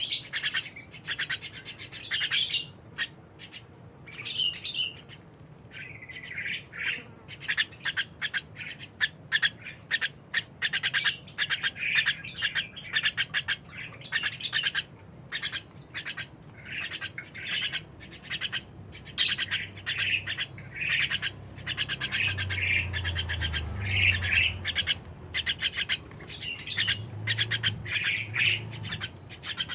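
A songbird chirping and singing in rapid runs of sharp, high notes broken by short pauses.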